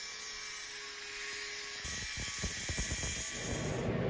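Angle grinder cutting a small steel repair patch, with a steady high hiss, then from about halfway an irregular crackle of a welder tacking the patch over a rust hole in a car roof.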